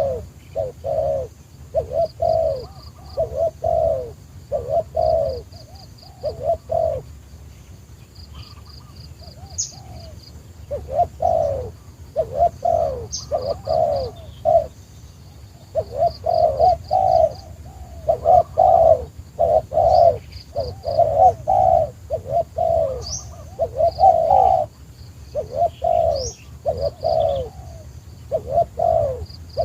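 A dove cooing over and over in runs of short falling coos, with a pause of a few seconds about a third of the way in.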